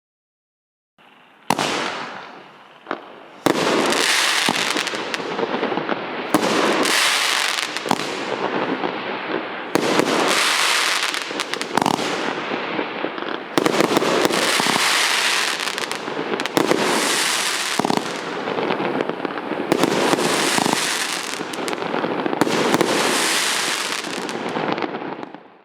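Fisherman Leviathan FP6262, a 500-gram 27-shot fireworks cake, firing its shots one after another, a loud burst every second or two, then stopping abruptly near the end.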